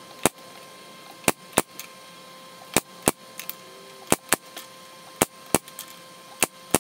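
Pneumatic brad nailer firing brads into thin plywood shingle strips: a run of sharp shots, mostly in pairs about a third of a second apart, coming roughly once a second.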